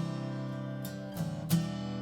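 Background music: an acoustic guitar strumming chords, with a strum every half second or so.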